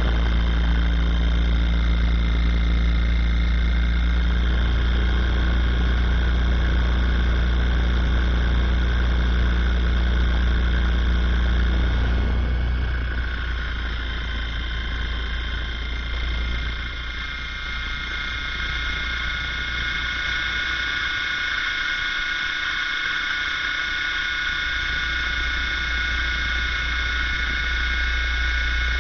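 A radio-controlled helicopter running, heard from a camera mounted on its spinning rotor: a heavy low hum and several steady high whining tones over a noisy haze. About twelve seconds in, the lower tones drop out and the sound gets a little quieter.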